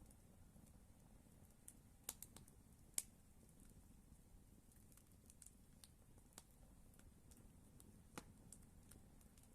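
Campfire crackling quietly: scattered sharp pops and snaps from the burning wood, the loudest about three seconds in.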